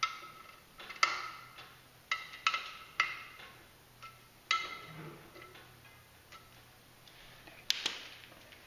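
Steel wrench clinking against a clutch pressure plate and flywheel as the pressure plate bolts are tightened: about seven sharp, irregularly spaced clinks, each with a brief metallic ring, the loudest near the end.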